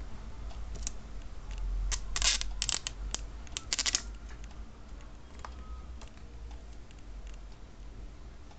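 Thin plastic protective film being peeled off a new iPhone 3GS and crumpled in the hand, crackling in a cluster of short bursts about two to four seconds in, then quieter handling.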